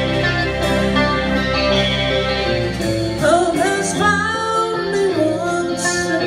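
Live rock band playing: electric guitars, drums and keyboards, with a voice singing in the second half as the low bass drops away.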